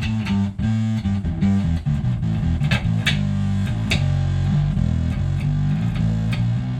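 Electric bass played through a Big John's Electronics five-knob Mammoth fuzz pedal, a clone of the ZVEX Woolly Mammoth, blended with a clean signal so the bottom end stays clean under the fuzz. A riff of sustained low notes changes pitch, with a few sharp plucked attacks.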